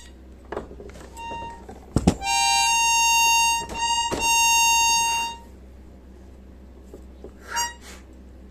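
Steel accordion reeds on a wooden reed block, blown by mouth to check their pitch during hand tuning by ear. After a knock about two seconds in, one reed sounds a steady, buzzy high note for about three seconds. A short note of the same pitch sounds near the end.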